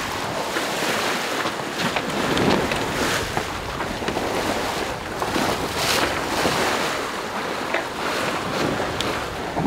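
Sea water rushing and splashing along the hull of a Dufour 40 Performance sailing yacht under sail, swelling and ebbing with the waves, with wind buffeting the microphone.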